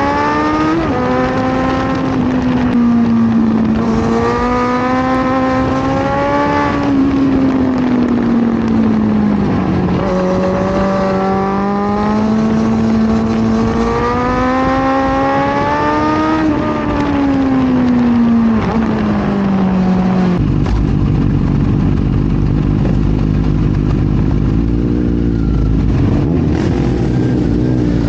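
Kawasaki Z900's inline-four engine being ridden, its note rising and falling smoothly with throttle and gear changes. About twenty seconds in it settles to a lower, steadier note with a heavy rumble, then dips and climbs again near the end.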